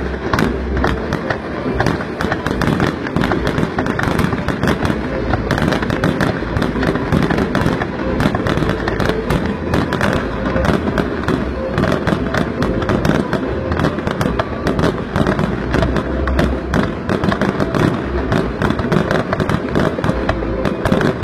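Fireworks display: a dense, unbroken barrage of rapid crackles and bangs, many shells going off close together, with heavy low rumbling beneath.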